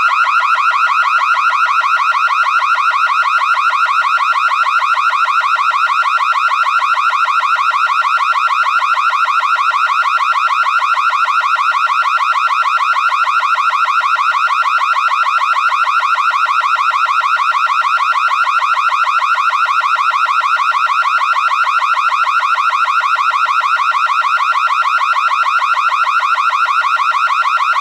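Electronic alarm signal sounding without a break: a high-pitched, rapidly pulsing tone that holds steady, then cuts off suddenly at the end.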